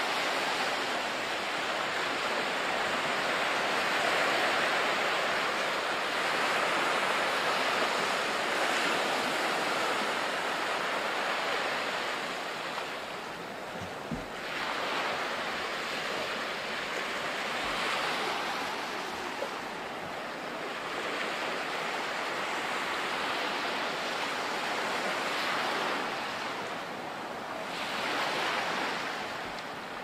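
Sea waves washing onto a sandy beach, a steady rush that swells and eases every few seconds.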